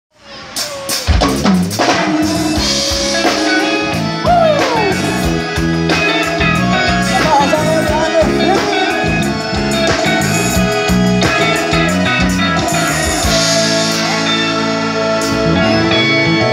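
A live forró band playing an instrumental intro on drum kit, electric bass and electric guitar, fading in over the first second. A falling pitch glide comes about four seconds in.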